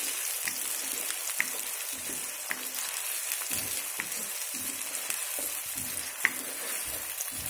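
Chopped onions and green chillies sizzling steadily in hot oil in a kadhai as they are sautéed toward brown, with a spoon stirring and scraping through them and giving short light taps against the pan about once a second.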